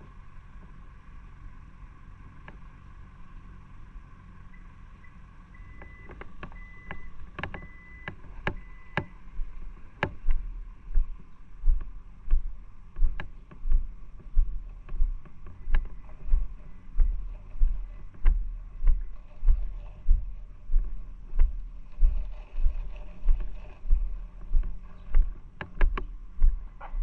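Footsteps of someone walking at a steady pace, heard as low thuds about once a second through a body-worn camera. They start about ten seconds in, after a quieter stretch with a low hum, a few short high beeps and some clicks.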